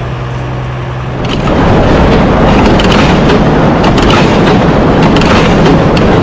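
Tractor-drawn small square hay baler running, its pickup, feeder and plunger working. It starts as a steady low mechanical hum, and about a second in it gets much louder with a dense rattling clatter.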